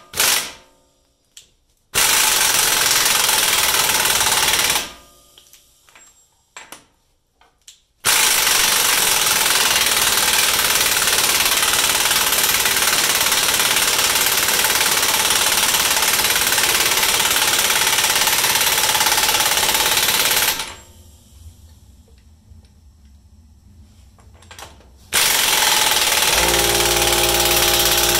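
An impact wrench hammering the new front axle nut tight, in three runs: a short one of about three seconds near the start, a long one of about twelve seconds, and another near the end.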